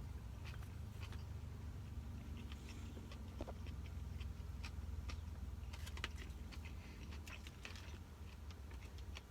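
Quiet chewing and small irregular mouth clicks of someone eating sushi, over a steady low hum.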